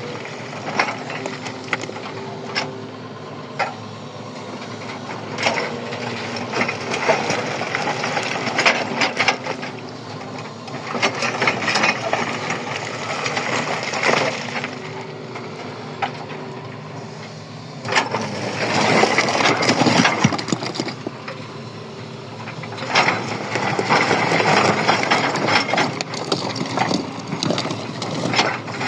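An engine running steadily under many sharp cracks and crunches, like material being broken and crushed. The cracking swells into louder, denser spells about two-thirds of the way through and again near the end.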